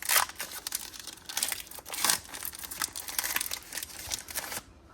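Pokémon trading cards being handled and sorted by hand: an irregular run of papery rustles and crinkles, which dies away near the end.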